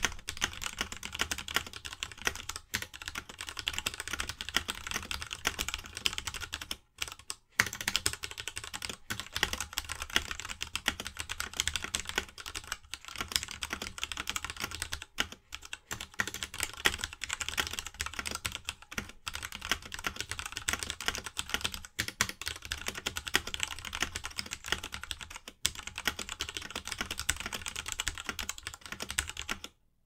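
Continuous fast typing on a Ducky Year of the Rat mechanical keyboard fitted with stock Cherry MX Black linear switches: a dense run of key clacks, with a couple of short pauses about seven seconds in. The typing stops just before the end.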